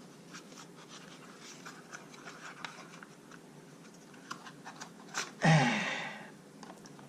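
Faint clicks and scratches of small objects being handled, then about five seconds in a person's loud breathy exhale that fades over about a second.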